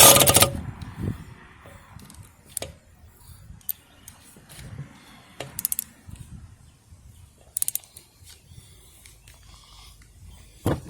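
Handling noise: a loud, short rustling clatter at the start, then scattered sharp clicks and knocks, a few in quick runs, as the camera and things around it are moved about.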